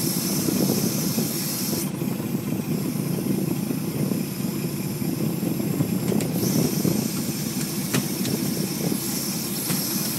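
Gillnet fishing boat's engine running steadily under a high hiss that steps louder and quieter a few times, with a single sharp knock about eight seconds in.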